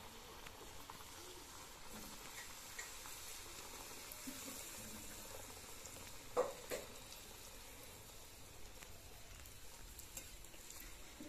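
Luchi frying in hot oil in a kadai, a faint steady sizzle. About six seconds in there are two sharp clicks close together.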